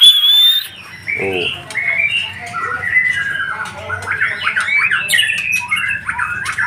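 White-rumped shama (murai batu) singing a rapid, varied song of short whistles, slurred glides and chattering notes, opening with a loud, harsh note.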